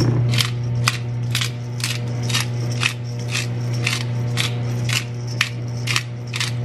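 Spice jar shaken over the pot in regular strokes, about two a second, each a short dry rattle of dried herbs, over a steady low hum.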